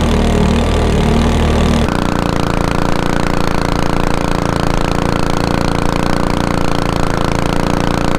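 Mud motor's small gas engine running steadily under way on a boat. Its note changes abruptly about two seconds in, then holds steady.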